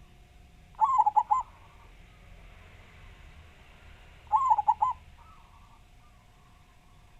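Zebra dove (local Javanese perkutut) cooing: two short phrases of about four quick notes each, about three and a half seconds apart, with fainter bird calls between them.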